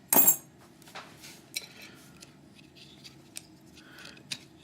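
A loud sharp metal clack from the hardened-steel Viro Totem chain lock being worked in a vise, followed by faint scattered clicks and light metal scraping.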